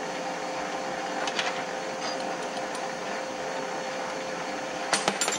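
Metal lathe running with a steady hum while taking a pass on an aluminum wheel spacer, with a quick cluster of sharp metallic clicks near the end.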